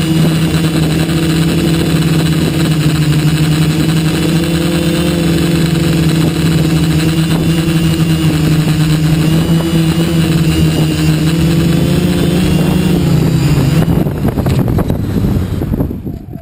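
TBS Discovery quadcopter's electric motors and propellers buzzing at a steady pitch under hiss from the rushing air. About 14 seconds in, the motors throttle down and the buzz drops in pitch and fades away.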